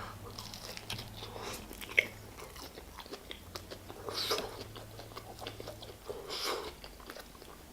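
Close-up chewing and biting of a crispy fried chicken burger, with small crunching clicks throughout and one sharper crunch about two seconds in. Two louder breaths break in partway through, as the hot sauce burns.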